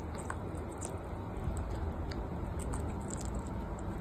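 Pet parrots nibbling at a cherry: faint, irregular small clicks and wet squishes of their beaks on the fruit, over a steady low rumble.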